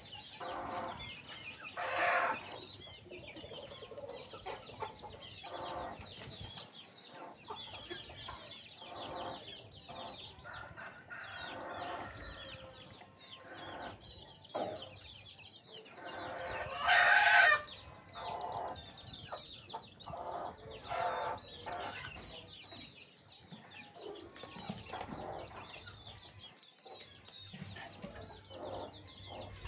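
Chickens clucking on and off, with chicks peeping in high thin chirps. One loud call from one of the birds stands out about halfway through.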